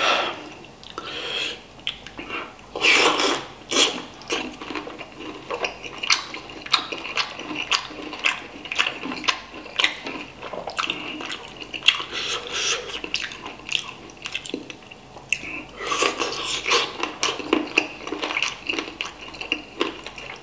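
Close-up wet eating sounds from chewing and sucking on a chicken head cooked in spicy broth: irregular smacks, slurps and sharp mouth clicks, with louder bursts about three seconds in and near the end.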